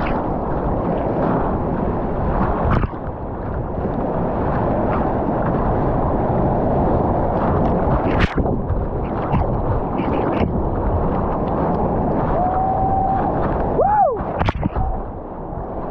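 Whitewater rapids rushing and splashing against the bow of a kayak, heard close up with spray and waves washing over the microphone. A few sharp slaps of water break through, and near the end there is a short gurgling, warbling tone.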